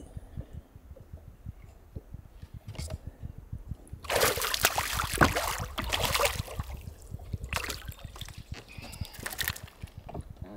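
Hooked smallmouth bass splashing and thrashing at the water's surface beside the boat as it is landed. The loudest splashing comes about four seconds in and lasts around two seconds, with shorter splashes after.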